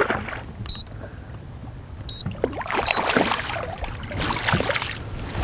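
A hooked smallmouth bass thrashing and splashing at the water's surface beside the boat, with irregular splashes strongest about two and a half to four seconds in. Two sharp clicks, about one and two seconds in, are the loudest sounds.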